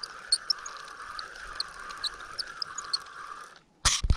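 A steady, high chorus of calling frogs, pulsing slightly, with many short bird chirps over it. Near the end it cuts off abruptly and two sharp knocks follow.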